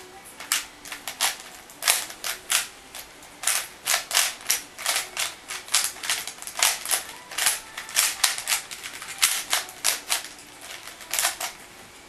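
3x3 Rubik's cube being turned by hand, its layers clicking in quick irregular runs with short pauses between them, as the cube is scrambled from solved.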